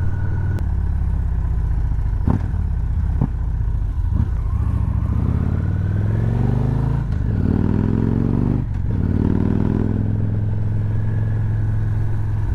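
Motorcycle engine running while riding on light throttle, picking up speed twice with a rising pitch and a brief dip at each gear change, heard through a helmet-mounted mic. Two sharp knocks early on.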